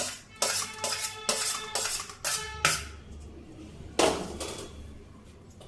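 A steel spoon tapping and clinking against a steel cooking pot as carom seeds are added. It makes a run of evenly spaced ringing taps, about two a second, then one louder clink about four seconds in.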